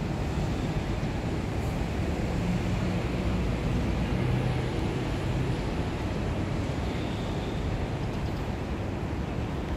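Steady low rumble of distant traffic, swelling slightly about four seconds in.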